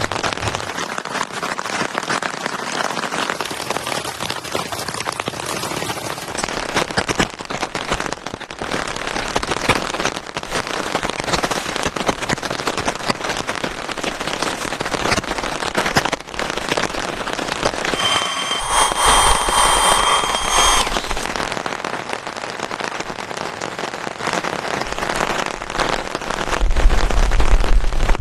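Heavy rainstorm: dense rain falling steadily as a continuous crackle of drops. About two-thirds of the way through, a different two-second sound with a steady tone cuts in, and near the end a low rumble grows louder.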